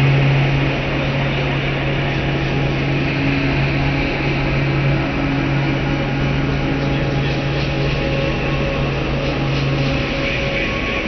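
A steady low hum held over a dense, even rushing noise; the hum stops about ten seconds in.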